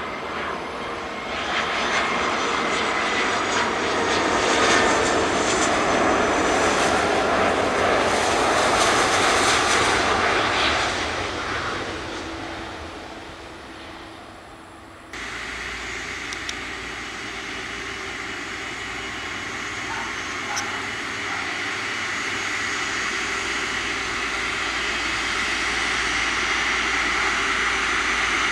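Airbus A330-300 airliner's twin Rolls-Royce Trent 700 jet engines: a loud roar that builds and then fades away as the aircraft passes. After an abrupt cut about halfway, a steadier engine noise with a whine slowly grows louder as it rolls along the runway.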